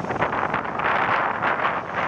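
Gusty wind buffeting the microphone, a loud uneven rushing, over the steady jet noise of an Airbus A320-family airliner on final approach.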